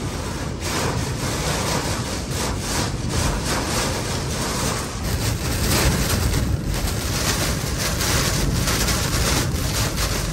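Category 4 hurricane wind and driving rain, a dense steady rush that swells and eases in gusts.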